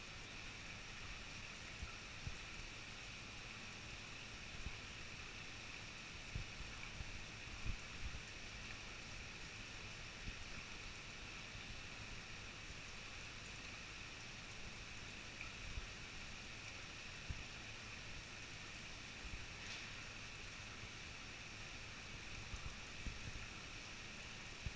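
Faint steady hiss and bubbling of water from air stones aerating a koi bowl, over a low steady hum, with a few soft knocks.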